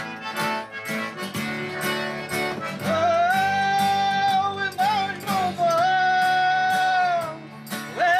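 Live acoustic folk music: an acoustic guitar strummed and plucked, joined about three seconds in by long held, high melody notes that slide up into pitch.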